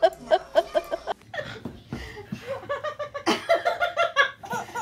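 A person laughing hard in quick repeated bursts, about five a second, that stop a little over a second in. Irregular voice sounds follow.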